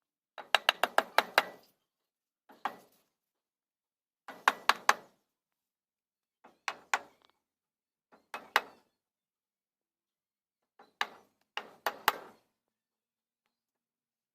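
Sharp knocks on wood from hand tool work, coming in short quick runs: a fast run of about seven strikes, then pauses broken by single knocks and runs of two to five.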